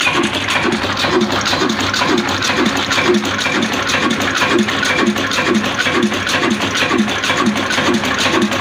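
Old Shaheen slow-speed diesel engine running steadily, beating about twice a second, with a fast ticking clatter over the beat.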